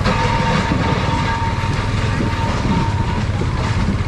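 Busy market ambience dominated by a vehicle engine running close by, with a steady high tone for about the first three seconds.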